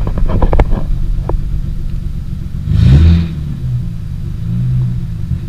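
Nissan RB30 straight-six with a straight-pipe exhaust running loud at idle, blipped once about three seconds in so the note rises and drops back. A few sharp clicks sound in the first second.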